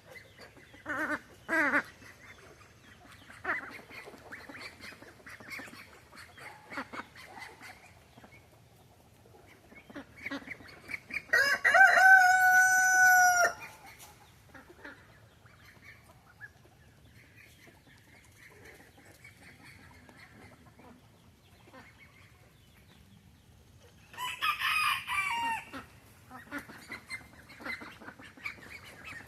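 Chickens clucking, with a rooster crowing loudly once, a steady call of about two seconds, roughly twelve seconds in. A second, shorter loud call comes near the end.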